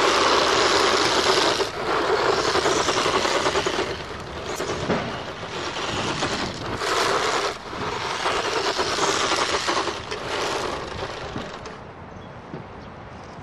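Vintage Tamiya Hornet RC buggy's brushed electric motor and gearbox whining as it is driven across sandy gravel, the tyres scrabbling on the grit. The sound rises and falls in surges with short let-offs, then drops away near the end as the car stops.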